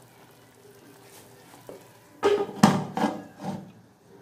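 A glass pot lid set down on a metal wok, a few loud clattering knocks with brief ringing about two seconds in, after a faint simmer.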